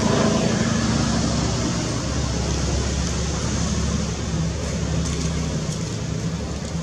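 A steady, low engine hum over an even background rumble, like traffic or a motor running nearby.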